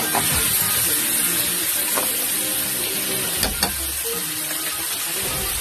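Chicken and chayote sizzling in a metal pot as they are stirred, a steady hiss of frying. The stirring utensil knocks against the pot with two sharp clinks about three and a half seconds in.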